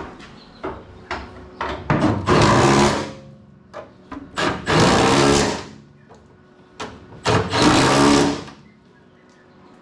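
A power tool in a metal shop running in three bursts of about a second each, with a rapid buzzing rattle, and sharp clicks and knocks of metal between the bursts.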